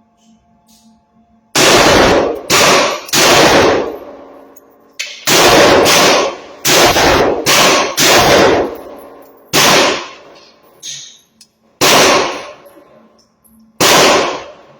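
Gunshots from a 7.5-inch AR-15 pistol in 5.56: a string of about a dozen shots, some in quick groups of two or three and others spaced a couple of seconds apart, each with a reverberating tail.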